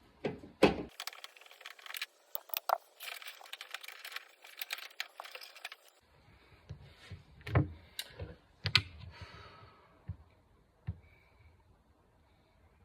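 Small metal parts clinking and rattling as the trunk latch and release cable are handled and taken off, followed by a few separate knocks and clicks.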